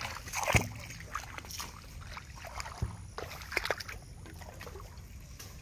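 Water splashing and sloshing as it is poured into a diesel water pump's casing to prime it, with shallow flood water moving around. A couple of sharp knocks, the loudest about half a second in.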